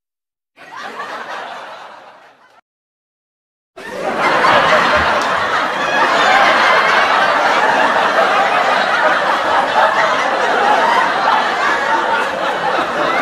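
A short burst of laughter that fades away, then after a second of silence a large audience laughing together, loud and sustained.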